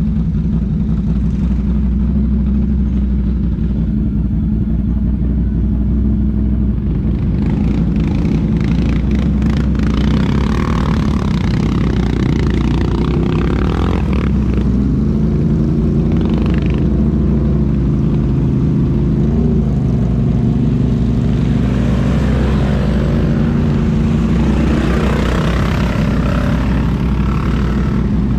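ATV engines: one running steadily close by throughout, while quads rev up and down as they wade through a muddy water hole, louder about a third of the way in and again near the end.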